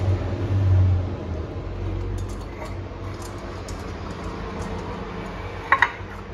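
A small brush spreading oil around the cups of a metal muffin tin: faint brushing over a steady low hum, with two quick clicks near the end as it knocks against the tin.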